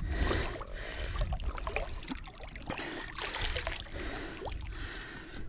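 Water sloshing and trickling, with scattered small knocks and clicks, as a large blue catfish is handled back into the water for release.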